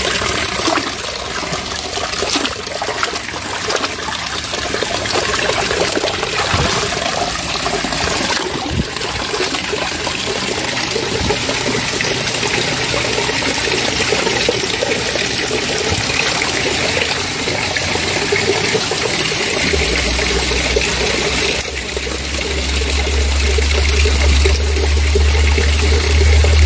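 Spring water running and splashing over rocks while a freshly dug tree root is rinsed in the stream. A deep low rumble comes in about twenty seconds in and grows toward the end.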